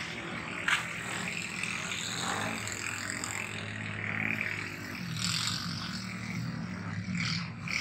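A steady low engine hum runs under a constant hiss of surf and wind, with one sharp click about a second in.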